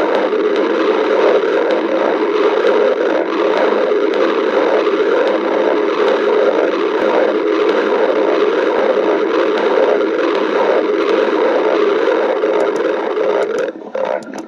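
A person's stomach growling, picked up close: one long continuous growl that stops abruptly near the end, leaving a few faint clicks.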